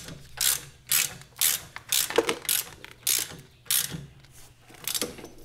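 Ratchet wrench clicking in short bursts, about two a second, as it is worked back and forth to back out a bolt.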